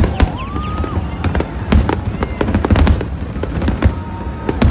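Fireworks display: aerial shells bursting in a rapid string of bangs and crackles, with heavier booms about two and three seconds in. A short rising whistle comes about half a second in.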